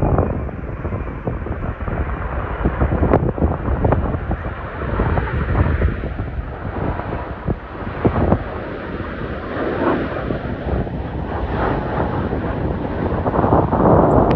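Jet airliner engines passing, heard through heavy wind buffeting on the microphone.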